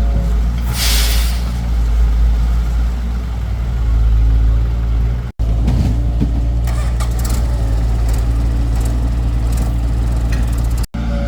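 Excavator diesel engine running steadily under load while it digs, with a short hiss about a second in and scattered clanks and scrapes later on. The sound drops out briefly twice.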